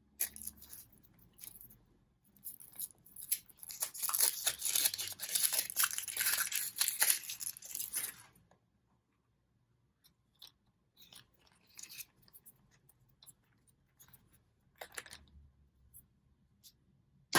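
A Kinder chocolate egg's wrapper being torn open and crinkled by hand for about eight seconds. Then come quieter scattered rustles and small clicks, and one sharp click near the end.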